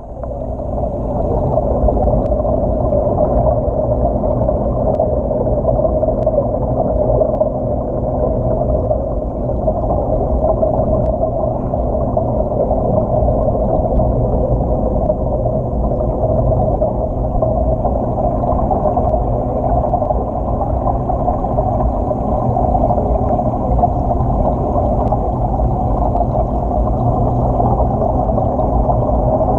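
Steady, muffled hum and water noise of an aquarium touch tank, heard underwater through a GoPro's waterproof housing, with a steady low tone running through it.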